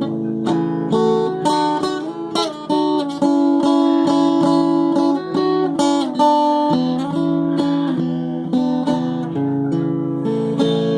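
Instrumental passage on an acoustic guitar-family instrument: a melody of quickly plucked notes over strummed chords and bass notes, with no singing.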